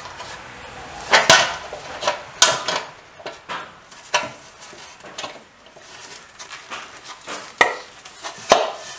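A sheet-metal panel clattering and knocking as a tucking fork is twisted into its edge to form tucks for shrinking the metal. There are a handful of sharp metallic knocks at uneven intervals, the loudest about a second in and again near two and a half seconds.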